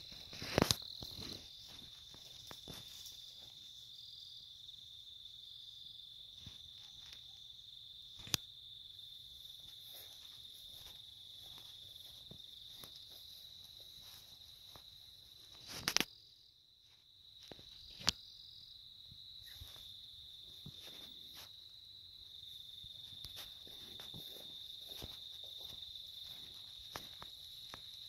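Night insects chirring as a steady high-pitched chorus. Scattered light clicks and knocks of walking and handling run through it, with a louder click about 16 seconds in, after which the sound drops out for about a second.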